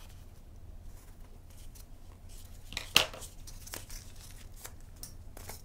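Soft scratching and rubbing as a ballpoint pen draws along a flexible tape measure on a foam disc and the disc is handled, with one sharp click about three seconds in.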